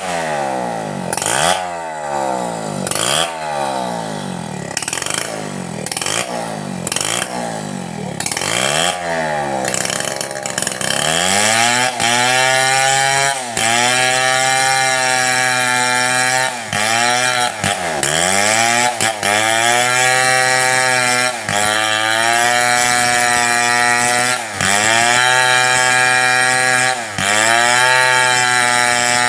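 Two-stroke chainsaw cutting mahogany lengthwise. For the first ten seconds or so the engine speed rises and falls about once a second. After that it runs at high revs under load, its pitch dipping briefly every two or three seconds and recovering.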